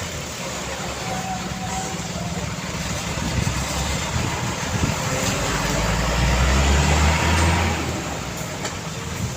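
Road traffic passing steadily, with a heavy vehicle's deep engine rumble building to its loudest about six to seven seconds in and then fading as it goes by.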